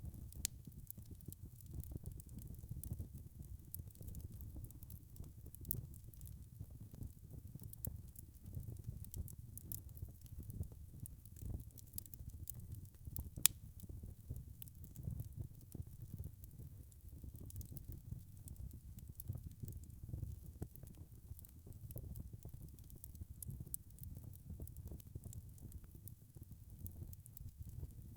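Wood fire burning in a fireplace: a steady low rumble of flames with frequent small crackles and snaps, and one louder pop about halfway through.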